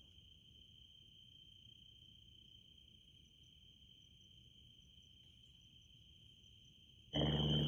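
Crickets singing in a faint, steady high trill. Near the end a much louder noise cuts in suddenly.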